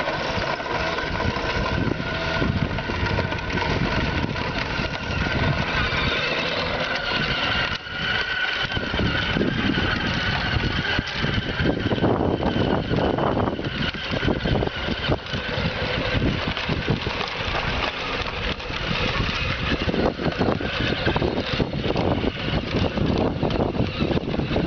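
Small youth ATV engine running as the quad rides across dirt, its engine note shifting up and down with the throttle.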